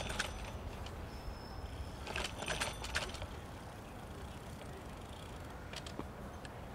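Shared bicycle rattling over bumps in the path: two short bursts of metallic jangling, one at the start and one about two seconds in, with a few lighter clicks near the end, over a steady low rumble of wind and riding.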